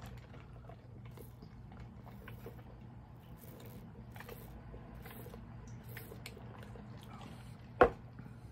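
Soft sipping through a plastic straw from a fountain-drink cup, with a steady low hum underneath, then one sharp knock near the end as the cup is set down.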